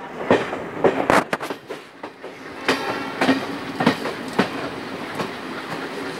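Passenger train coach running on a curve, its wheels clattering over the track in a series of sharp, irregular clacks over a steady rumble, heard at the open coach door.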